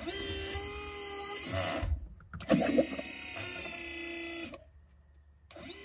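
Minn Kota Raptor hydraulic pump motor running with a steady whine in short runs of about two seconds, stopping twice and starting again near the end, with a low thump at each change: the pump being cycled while it is bled and filled with fluid.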